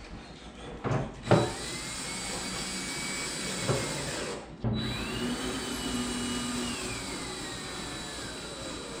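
Two knocks, then a cordless power drill driving fasteners in two long runs with a short pause between. Each time, the motor's whine sags steadily in pitch as the screw bites and the load grows.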